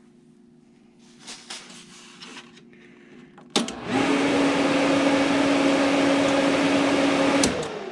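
Everlast PowerTIG 255EXT inverter TIG welder being switched on. About three and a half seconds in there is a click, then the cooling fan runs at full speed with a steady rush and hum for about four seconds and cuts off. This is the machine's power-on self-test, and it shows the welder works.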